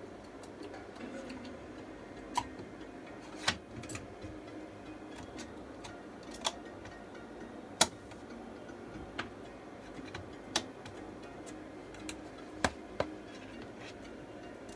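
Scattered sharp clicks and taps of small tools, such as meter probes, working on a phone's logic board, about ten in all at irregular intervals, over a steady low hum.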